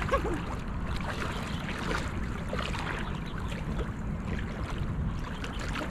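Legs wading through shallow estuary water: continuous sloshing and light splashing over a steady low rumble.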